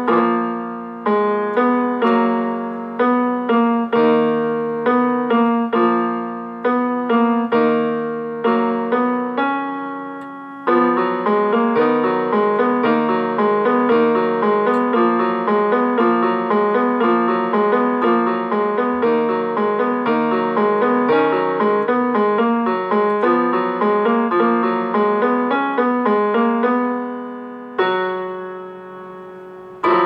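Solo piano music. Notes and chords are struck about two a second and left to ring out, then from about ten seconds in a fast, unbroken stream of notes follows. Near the end it settles on a held chord and a fresh chord is struck.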